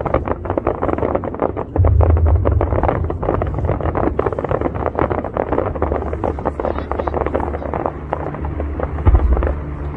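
Crowd of people talking, with wind buffeting the microphone and a deep low hum underneath that swells about two seconds in.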